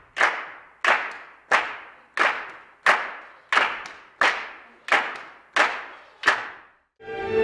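Hand claps in a steady beat, about three every two seconds, each ringing briefly in the hall. They stop about seven seconds in, and a string orchestra comes in.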